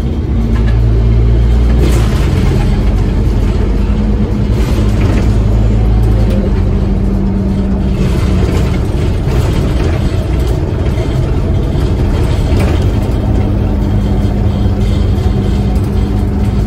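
Scania N230UD bus's diesel engine and running gear heard from inside the passenger cabin, pulling under load and growing louder about half a second in, then running steady at speed with a low engine hum and road noise.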